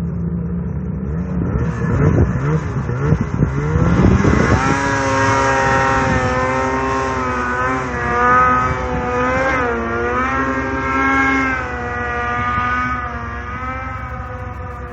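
Snowmobile engine revving hard as the sled pulls away up a steep snow slope, its pitch sweeping up, then held at high revs with a wavering pitch as it climbs, growing fainter near the end as it draws away.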